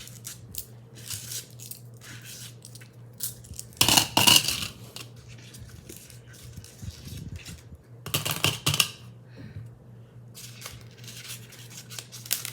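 Hands handling small snap-button pieces and their packaging: clinks and rustling, with two loud bursts of clattering about four and eight seconds in, over a steady low hum.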